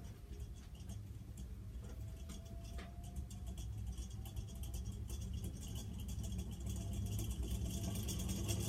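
Antique Tuerk Hunter ceiling fan's friction-drive motor running up: a low hum with fast rattling that grows louder, a faint whine slowly rising in pitch, and a few separate clicks in the first three seconds.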